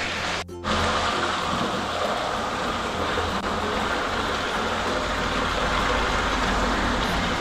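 Hot-spring bathwater overflowing the edge of the tub and running into a floor gutter and drain grate: a steady rushing splash of flowing water. The sound breaks off for a moment about half a second in.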